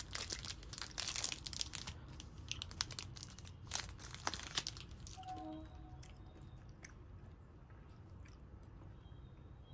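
Metallic plastic wrapper of a Cadbury 5 Star bar crinkling and crackling as it is torn and peeled open by hand. The crackling is busiest for about the first five seconds; after that there are only faint scattered clicks.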